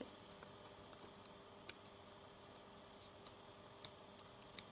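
Near silence: quiet room tone with a handful of faint, sharp small clicks, the clearest about a third of the way in.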